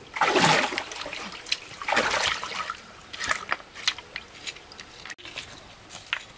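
Water splashing: two big splashes about two seconds apart, followed by smaller splashes and drips.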